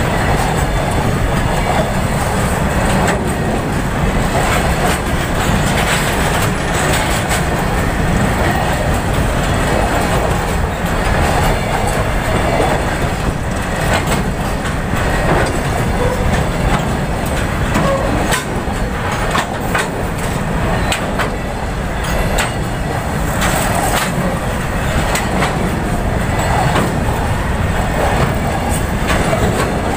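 A freight train of Indian Railways BCNA covered wagons rolling past: a steady rumble of wheels on the rails, broken by frequent irregular clicks and clanks.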